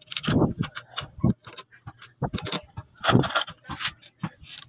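Irregular metallic clicks and clinks of screws being handled and set into a motorcycle's aluminium clutch cover, with a few louder knocks.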